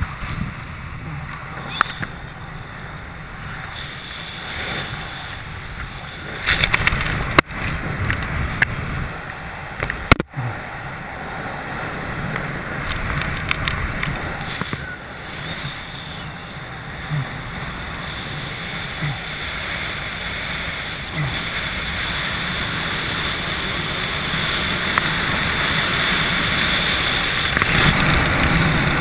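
Wind rushing over the camera's microphone during a descent under an open parachute, with parachute fabric fluttering; a couple of sharp clicks come about seven and ten seconds in, and the wind grows louder toward the end.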